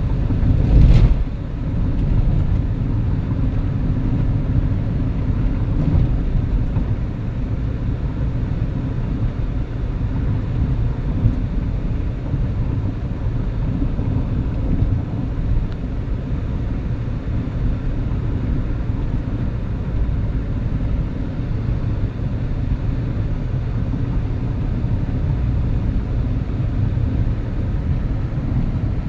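Car driving at cruising speed: a steady low rumble of road and engine noise, with a single thump about a second in.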